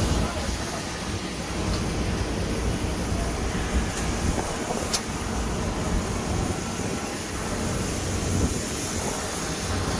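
Steady outdoor noise of wind buffeting the microphone over a low rumble, with two faint clicks about four and five seconds in.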